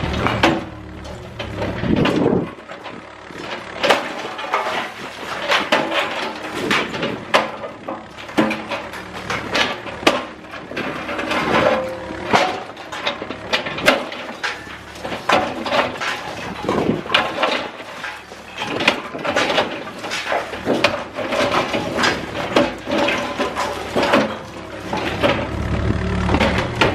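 Demolition of a concrete-and-rebar building by a Cat 305E2 mini excavator: a long run of irregular knocks, clanks and crashes as concrete breaks and debris falls, with scraping between the hits.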